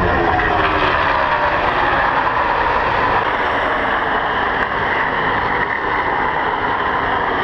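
A pack of 725-horsepower NASCAR stock cars racing past at full speed: a loud, continuous engine noise that holds steady throughout, with a falling pitch in the first second as cars go by.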